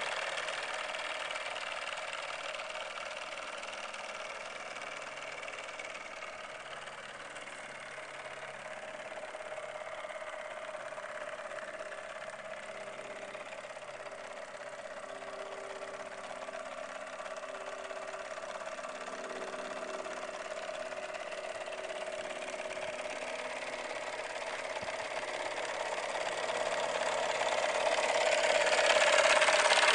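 Model steam launch running on its two Midwest reciprocating steam engines: a steady mechanical running sound with hiss that eases off a little midway and grows louder near the end.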